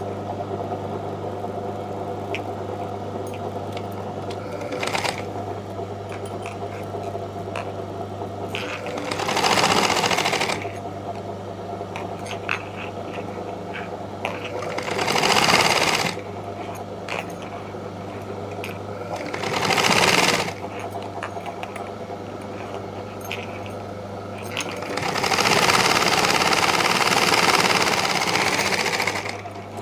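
Mona sewing machine running in four short bursts of stitching, the last and longest lasting about four seconds near the end, as a gathered puff sleeve is sewn onto its band.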